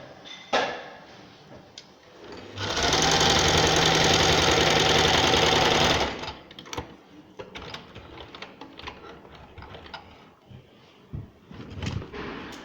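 Sewing machine stitching a short seam, running steadily for about three and a half seconds and then stopping. A few light clicks follow.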